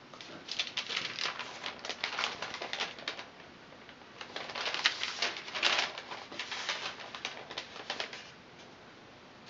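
Crisp rustling and crackling of a paper-backed sheet of flattened barley straw strips being picked up, flexed and turned over, in two bursts of a few seconds each.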